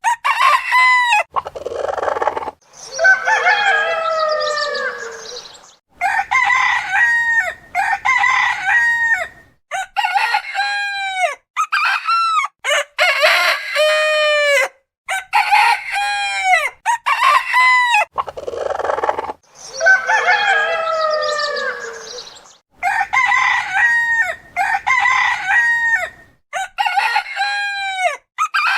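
Rooster crowing, one crow after another, joined by hard cuts between recordings. A long crow with a falling pitch comes about three seconds in, and the same run of crows plays again about eighteen seconds later.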